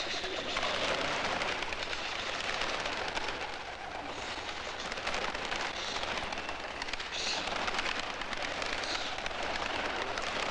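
A flock of white doves flapping their wings as they are released and take flight, a dense clattering flutter with brighter flurries every second or two.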